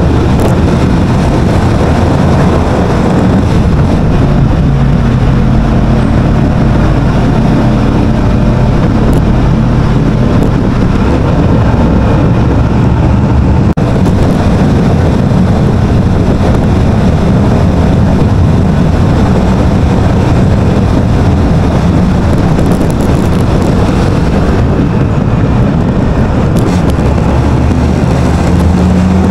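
Wind rushing over the microphone of a motorcycle-mounted action camera at riding speed, with a small underbone motorcycle's engine running beneath it, its note showing through at times.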